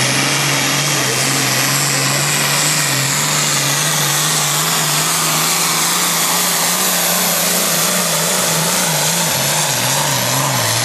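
Hot farm class pulling tractor's diesel engine running flat out under the load of the pulling sled, a loud steady drone whose pitch wavers slightly, with a high turbo whine over it.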